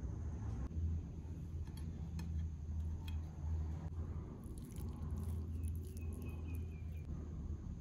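Steady low background hum with a few faint ticks, and a quick run of high chirps about five seconds in.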